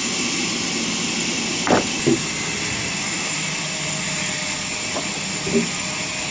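Sawmill machinery running steadily, a noisy hum with a thin high whine, with a few short knocks about two seconds in and again near the end.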